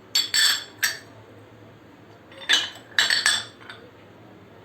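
Kitchen utensils clinking against a bowl or dish, in two short clusters of sharp clinks: one near the start and another a little past halfway.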